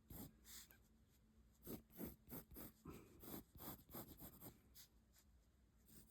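Pencil sketching on paper: faint, irregular short scratching strokes, several a second.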